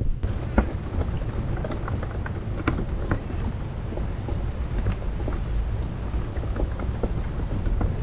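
Pride Go-Go LX four-wheel mobility scooter rolling along a wooden pier deck: a steady low rumble with scattered light clicks and knocks as the tyres cross the planks, mixed with wind on the microphone.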